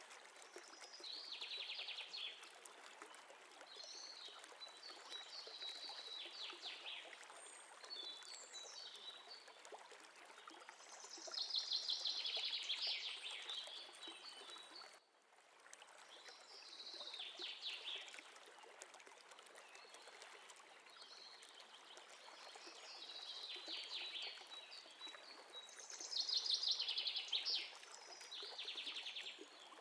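Faint steady water-like rushing, as of a stream, with bursts of bird chirping every few seconds. The sound drops out briefly about halfway through.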